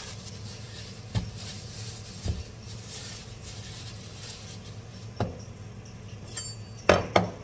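Food prep on a counter: a plastic bag rustles and a few light knocks sound as a red onion is handled. Near the end come two sharp knocks in quick succession, the loudest sounds, as a chef's knife cuts the onion against a wooden chopping board.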